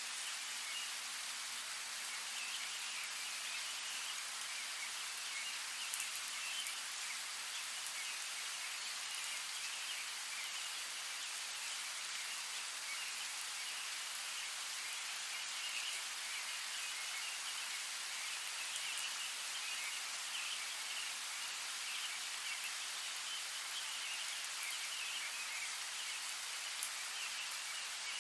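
Steady rainfall, an even hiss of drops, with a couple of louder single drops standing out.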